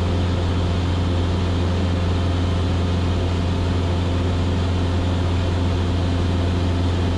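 Cessna 172S single-engine propeller plane in flight: its four-cylinder Lycoming engine and propeller make a steady, unchanging low drone heard in the cabin.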